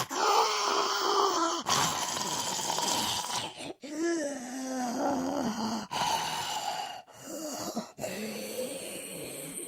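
Zombie vocal sound effects: about six short takes of wavering, raspy vocal moans, each cut off abruptly before the next begins.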